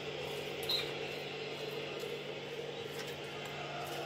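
Steady low hum of kitchen room tone, with one faint click a little under a second in.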